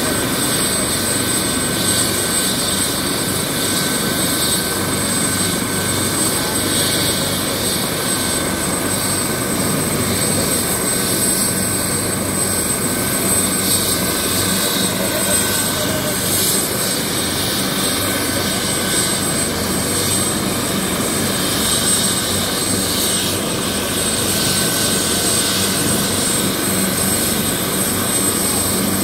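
Helicopter running on the ground with its rotor turning. The engine and rotor noise is steady and even, with a constant high whine over it.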